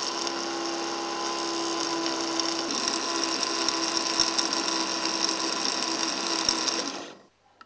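Ventura-Mix electric dental amalgamator shaking a predosed amalgam capsule at high speed to mix the mercury and alloy into amalgam: a steady mechanical whir. It cuts off suddenly about seven seconds in as its timed mixing cycle ends.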